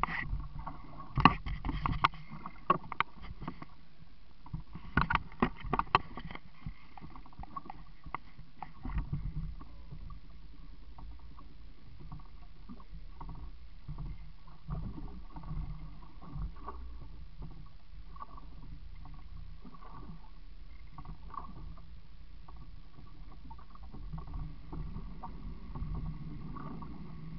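Small open fishing boat rocking at sea, water slapping against its hull, with a flurry of sharp knocks and clicks through the first several seconds, then a steady low hum.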